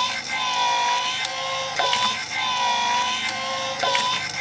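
Electric medical suction pump running as it draws engine oil out of a jet ski through a plastic tube. Its whine repeatedly sags and recovers in pitch, with a sharp click every couple of seconds.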